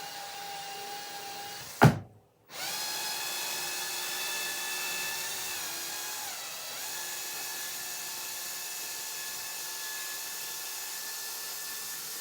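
Cordless combi drill driving a long screw out of a wooden armchair frame: the motor whines steadily, stops with a sharp knock about two seconds in, then runs again for the rest of the time, its pitch dipping briefly under load near the middle.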